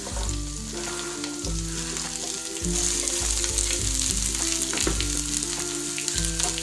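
Fresh spinach leaves sizzling in a little hot oil in a frying pan: a steady hiss that grows about a second in as the leaves heat.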